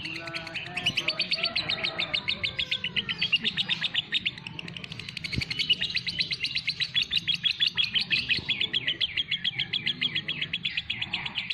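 Caged songbird singing a long, rapid run of high chirps, many a second, with hardly a break.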